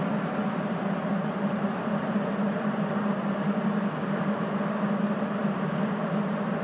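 Sapporo Municipal Subway Tozai Line 8000 series rubber-tyred train running through the tunnel between stations, heard from inside the car: steady running noise with a low hum.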